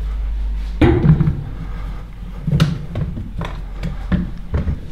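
Handling noise: a few separate knocks and clunks as cordless power tools are moved and picked up on top of a tool chest, with low rumble between them.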